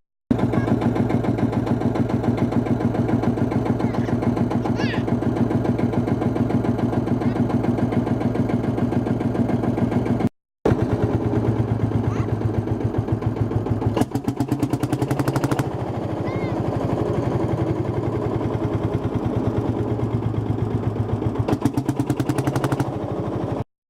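Field Marshall Series 3 tractor's single-cylinder two-stroke diesel running with an even, rhythmic beat through its rebuilt exhaust. The sound drops out briefly twice where clips are joined.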